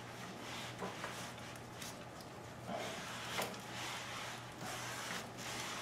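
Faint, soft rubbing of a degreaser-wetted cloth rag being wiped along a rubber hose on a motorcycle frame, over a steady low hum.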